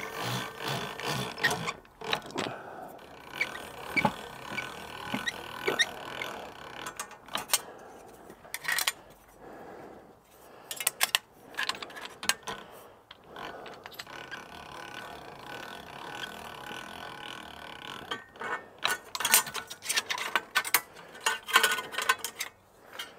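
Hand-cranked bench slip roll turning, its gears clicking and the steel strip clanking and scraping through the rollers as it is rolled into a ring. The knocks come irregularly, thinning out in the middle and bunching up again near the end.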